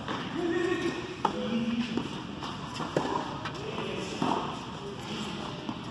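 Tennis ball struck by rackets and bouncing on a hard court in a rally: sharp pops about a second in, around three seconds and again just past four. Voices run underneath.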